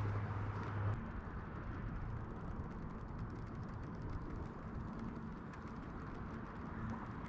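Steady urban outdoor background of distant traffic and machinery, with a low hum that about a second in gives way to a slightly higher steady hum.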